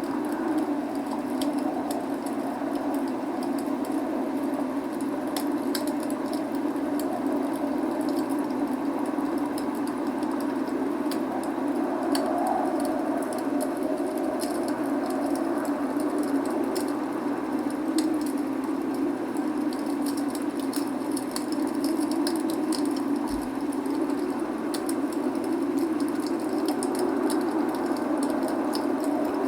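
Log fire crackling, with many small sharp pops scattered irregularly over a steady rushing hiss of rain.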